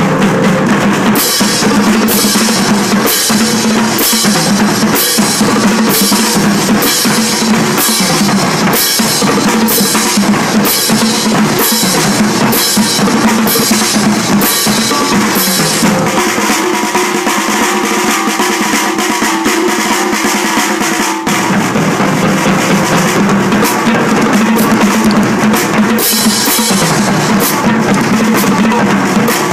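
Marching drumline playing a loud cadence, with snare, tenor and bass drums and regular cymbal crashes on a steady beat. About sixteen seconds in, the bass drums and cymbals drop out and the sound thins. About five seconds later the full line comes back in together.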